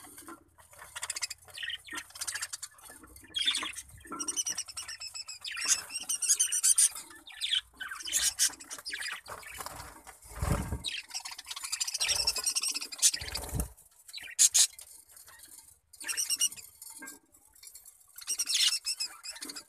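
Lovebirds chirping and squawking in quick, shrill bursts, with a couple of low thumps about ten and thirteen seconds in.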